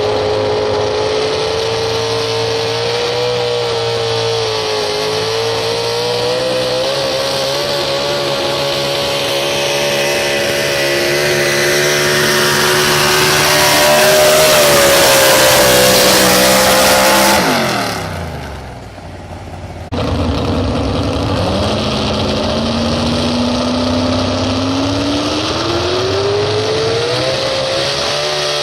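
Super stock 4x4 pulling truck engine running hard at high revs, climbing slowly and getting loudest about 14 to 17 seconds in, then the revs fall away sharply. After an abrupt break about 20 seconds in, an engine revs steadily upward again from low.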